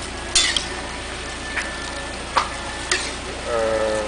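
Metal strainer and ladle clinking against an aluminium soup pot and a bowl as noodle soup is dished up, four sharp clinks over a steady hiss from the steaming broth.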